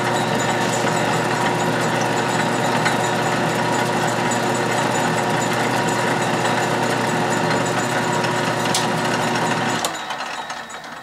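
12-inch Atlas/Craftsman lathe running steadily in back gear at slow speed with the half nut engaged, taking an internal threading pass, its motor and gearing giving a steady hum with a few fixed tones. About ten seconds in the lathe is switched off and winds down.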